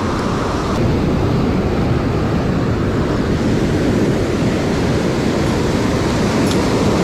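Ocean surf breaking and washing up a sandy beach: a steady, loud rushing noise.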